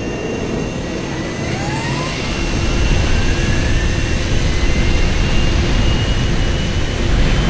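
Airliner jet engines spooling up, a rising whine over a low rumble that grows louder about two to three seconds in, as for the takeoff run.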